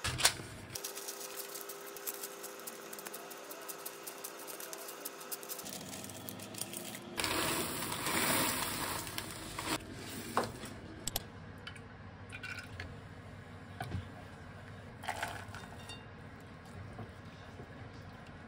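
Parchment paper crinkling as it is laid into a tart tin, then a louder rush of small tart weights (baking beads) poured in and rattling for a couple of seconds. A few light knocks follow.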